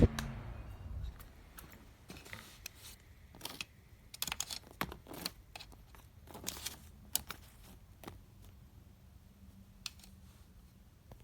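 A fan's blowing cuts off abruptly at the start. Then come scattered light clicks and short rustles of handling, clustered in the middle and thinning out toward the end.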